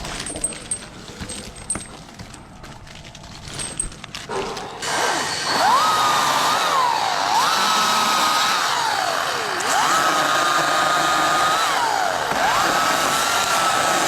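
Chainsaw revved to full speed about five seconds in, held high for a second or two and let fall back, four times over. Before it starts there are only scattered knocks and clicks.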